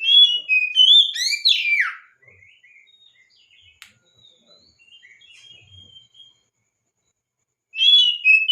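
Oriental magpie-robin (kacer) singing: a loud phrase of clear whistled notes ending in a quick sweep up and back down, then softer scattered notes, and the same loud phrase again near the end.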